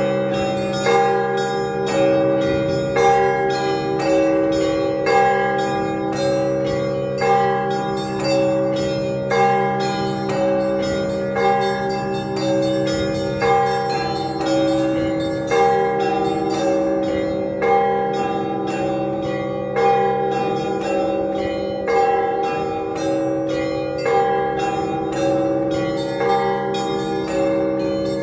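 Orthodox church bells ringing a full peal. One small bell is struck in a fast, even run over a repeating pattern of middle bells, a louder stroke lands about every two seconds, and low bells hum underneath.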